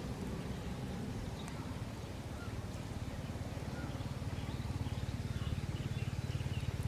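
A low, rapidly pulsing engine hum, growing louder over the second half, with faint bird chirps above it.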